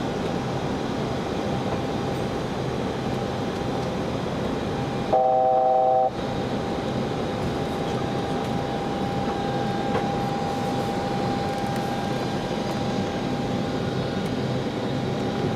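Steady rushing flight-deck noise of an Airbus A321 in flight on approach. About five seconds in, a loud electronic tone of several pitches sounds at once for about a second.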